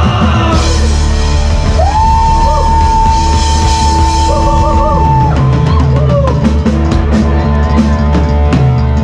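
Live rock band playing with drum kit and electric guitars. About two seconds in, a single high note is held for roughly three seconds over the band, and the drums hit hard near the end.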